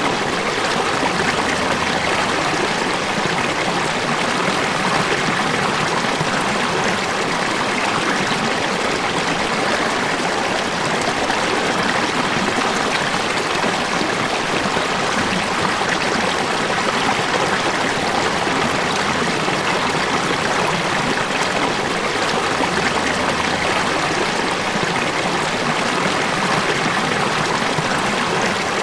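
River water flowing steadily, a constant, even noise of running water with no breaks or changes.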